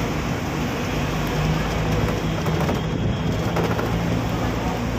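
Steady noise of a moving double-decker bus heard from its open upper deck: a low engine hum under a wash of wind and traffic noise.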